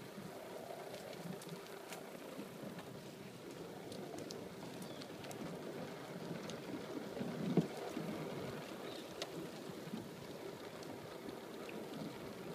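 Bicycle rolling along a trail, its tyres and frame giving a steady rolling noise with light rattles as it passes from a paved path onto a wooden plank boardwalk. One louder thump comes about halfway through.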